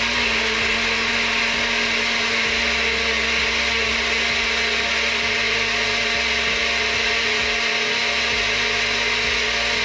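Countertop blender running with a steady motor hum, puréeing cooked carrot, cilantro and bean broth into a liquid.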